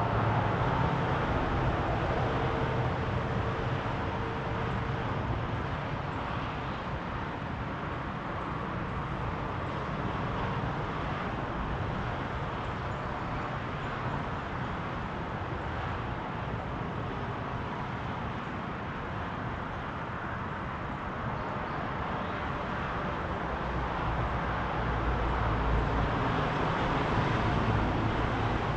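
Road traffic noise: a steady wash of passing cars, louder at the start and swelling again near the end with a deep rumble as a vehicle goes by.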